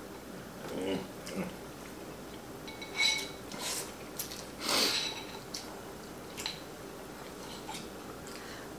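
Chopsticks and a fork clinking against ceramic bowls, a few separate light clinks with a brief ring, and a noisy slurp of noodles about five seconds in.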